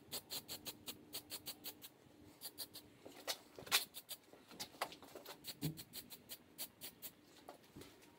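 Faint crackling and rustling of a sheet of paper being handled: a string of quick, irregular ticks, with one louder crackle about four seconds in.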